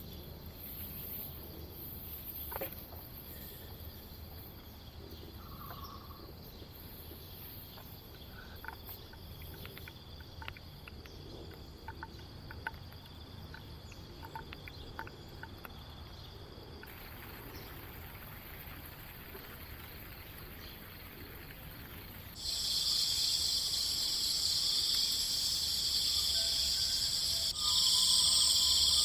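Insects chirping in a steady high-pitched chorus, with scattered faint chirps and ticks. Near the end, the chorus abruptly becomes much louder, twice.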